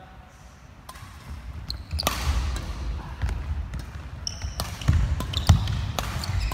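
Badminton rally: rackets strike the shuttlecock sharply several times at irregular intervals, over heavy thudding footsteps on the wooden court floor and a few short shoe squeaks.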